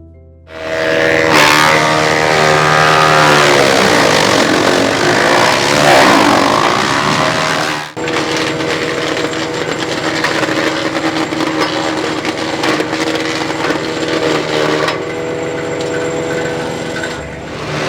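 Petrol-engined wood chipper with a 12 HP engine starting up and running at high speed while shredding coconut fronds and husks. The engine note rises, sags and recovers between about four and seven seconds, and runs steadily after a brief break near eight seconds.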